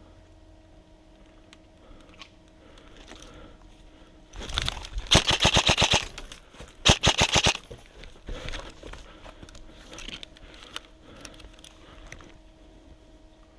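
Airsoft electric gun firing two rapid full-auto bursts about halfway through, the first longer and the second shorter, a short pause apart.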